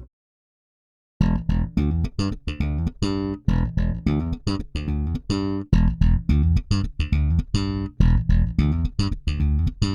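Electric bass guitar playing a quick riff of plucked notes, processed through a Pultec EQP-1A-style equalizer set for the "Pultec trick" low-end boost. It starts after about a second of silence and stops abruptly near the end.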